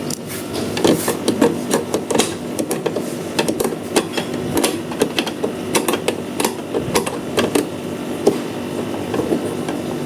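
Irregular clicks and knocks of a hand tool and plastic body panels being worked on, several a second, over a steady low hum.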